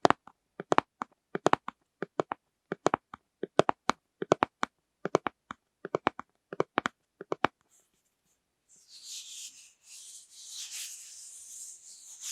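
Fingernails tapping on plastic lids in quick clusters of two or three crisp taps, one cluster about every three-quarters of a second, stopping about seven and a half seconds in. After a short pause, a soft scratchy rubbing begins.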